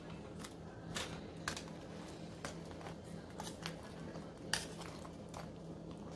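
Metal kitchen tongs clicking and clinking against a saucepan and a wire cooling rack while wings are lifted in and out of buffalo sauce: about a dozen sharp, irregular clicks, the loudest about four and a half seconds in, over a steady low hum.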